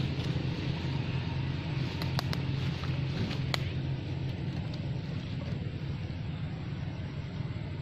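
A steady low rumble, like a motor running, with a few sharp clicks in the first half.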